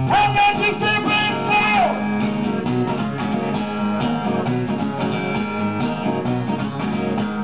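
Acoustic guitar strumming the closing chords of a song, with a man's voice holding one long sung note for the first two seconds that bends down as it ends. The guitar stops at the very end.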